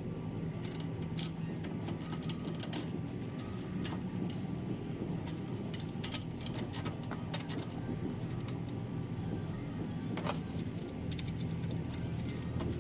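Metal exhaust parts and hardware clinking and rattling in irregular short clicks as the exhaust connector and its gasket are fitted to the downpipe, over a steady low hum.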